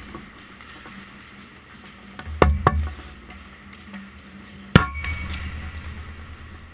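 Ice hockey stick and puck impacts: two sharp knocks about two and a half seconds in, then the loudest crack near five seconds in as a shot is taken at the goalie, with a low ringing that fades over the next second or so.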